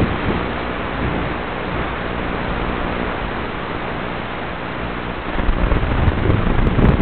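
Steady static hiss on an FPV quadcopter's video-link audio while the quad sits disarmed. About five seconds in, a louder low rumble builds as the quad's motors spin up for takeoff.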